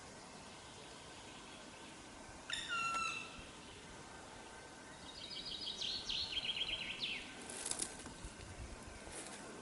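Forest songbirds singing over a steady faint hiss: a short phrase of falling notes about two and a half seconds in, then a longer rapid trill that drops in pitch about five seconds in, followed by a few sharp short calls.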